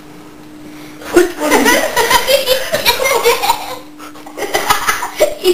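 Two girls burst out laughing about a second in, in loud fits that ease briefly and then start up again.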